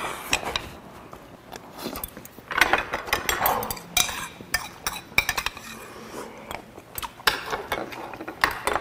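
Metal chopsticks and a spoon clicking and clinking against small dishes and bowls, with repeated sharp clicks throughout. A stretch of slurping from a spoon of broth a few seconds in.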